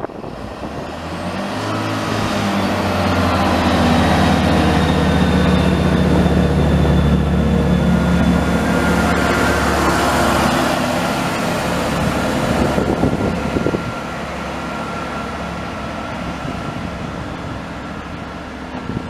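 Chiltern Railways Class 165 diesel multiple unit pulling away from the platform: its underfloor diesel engines build up over the first few seconds and run loud for several seconds, then drop to a quieter, steadier note about two-thirds of the way through as the train draws away.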